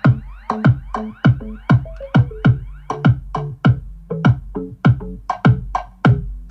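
Electronic music with a steady drum-machine beat, about three hits a second, played through a 12 V 120 W amplifier driving woofers and tweeters in two speaker boxes, with the bass tone control not yet turned up.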